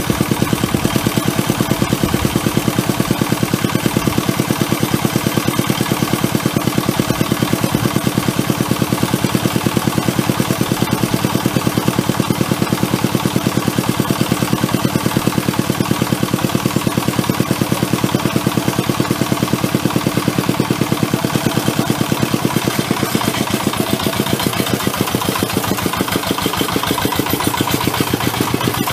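Single-cylinder diesel engine of a walking hand tractor running steadily under load while it ploughs a deep, muddy rice paddy, with a fast, even beat of firing strokes. It gets slightly quieter in the last few seconds.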